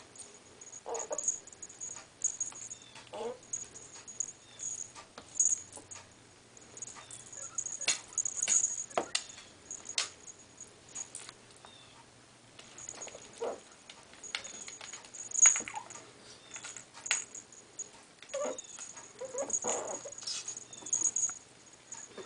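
Two ferrets wrestling on a shaggy bath mat: their collar bells jingle again and again over scuffling and scratching, with short runs of small animal vocalizations now and then.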